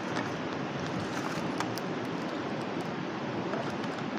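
Steady rushing of a shallow river, with a few faint clicks of plastic bottles and a container being handled.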